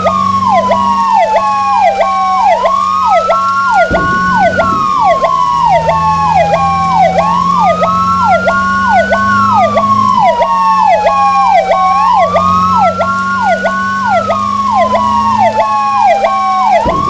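Fire apparatus sirens sounding together: one in a slow wail, rising and falling about every five seconds, the other in a fast pulsing pattern that dips about twice a second, over a steady low drone.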